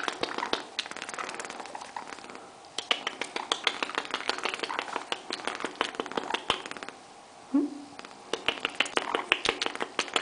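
Galah (rose-breasted cockatoo) making rapid clicking and tapping sounds in three bursts, with a brief low sound about two-thirds through.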